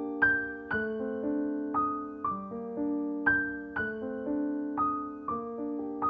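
Background piano music: a slow, gentle melody of notes and chords struck about every half second, each left to ring and fade.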